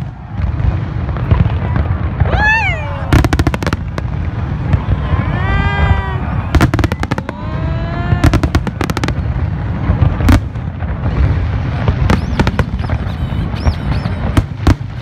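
Fireworks display: aerial shells bursting in clusters of sharp bangs and crackles, several times, over a continuous low rumble.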